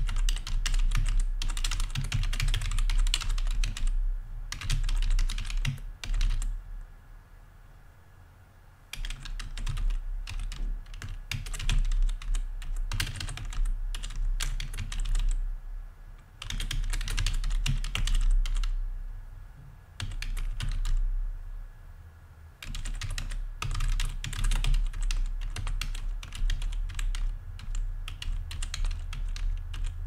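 Typing on a membrane computer keyboard: runs of quick key presses broken by short pauses, the longest a couple of seconds long, about seven seconds in.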